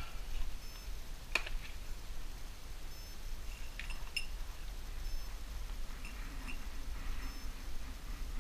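Small fishing tackle being handled: a sharp click about a second and a half in, then a few faint ticks as wire is threaded through a metal leader sleeve, over a low steady hum.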